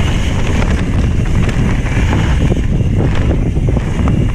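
Wind buffeting the microphone over a steady rumble of mountain bike tyres rolling fast on a dirt forest trail, with scattered small clicks and rattles from the bike.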